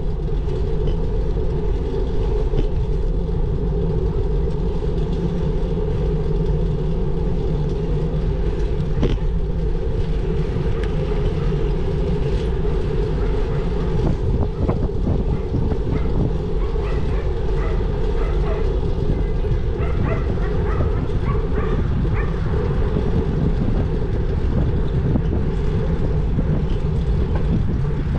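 Steady low rumble of wind and road noise from a bicycle ride, with a faint steady hum in it and a few faint short sounds in the second half.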